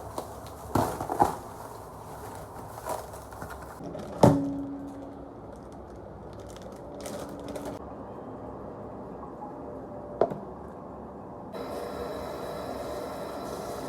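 Kitchen handling sounds: scattered knocks and clicks of objects being set down and handled. The loudest is a clink about four seconds in that rings briefly. A steady hiss comes in near the end.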